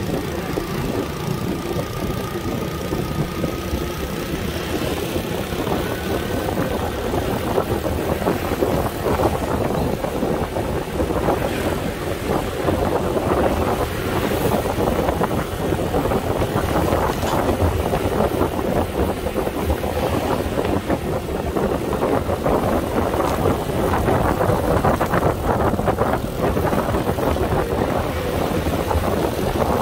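Motorcycle engine running steadily while riding along a road, with wind buffeting the microphone and tyre noise.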